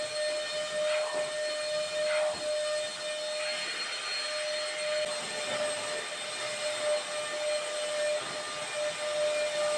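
An electric household appliance motor running steadily with a constant whining hum over a hiss, with a couple of faint knocks about one and two seconds in.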